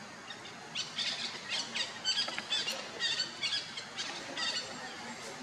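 Rapid series of short, high-pitched squealing animal calls, several a second, starting about a second in and fading out near the end, over steady background noise.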